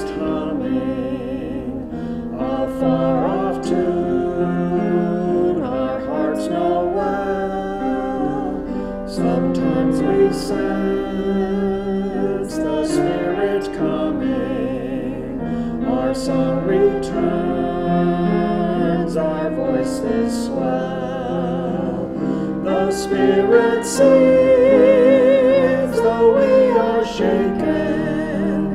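Sung music: a voice singing slow, held notes with vibrato, accompanied by piano.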